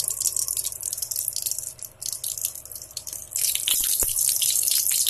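A little ghee sizzling and crackling as it heats in a metal kadai, growing louder and denser about three seconds in. A slotted metal spatula knocks lightly against the pan a few times near the end.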